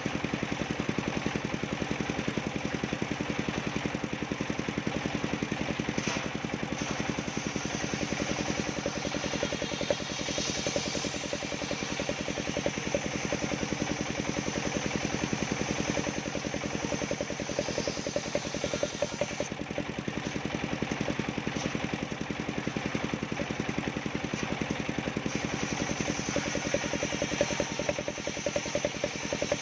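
Engine of a homemade circular saw rig running steadily at a constant speed. A higher hiss swells about ten seconds in, again midway, and near the end, as the saw blade cuts bendo wood.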